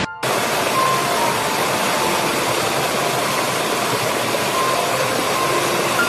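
Rushing white water, a steady dense hiss of falling water that sets in just after a brief dropout at the very start.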